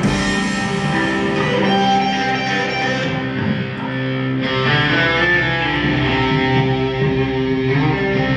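Live band playing an instrumental passage led by guitar, with steady held chords.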